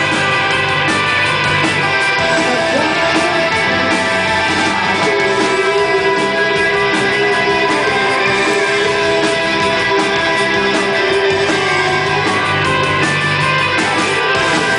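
Rock band playing live, electric guitar to the fore over bass and drums, with a long held note from about five to twelve seconds in.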